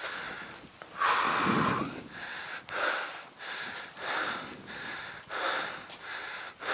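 A man breathing hard and fast close to the microphone, quick even puffs of breath with a longer, louder one about a second in: out of breath from the exertion of climbing.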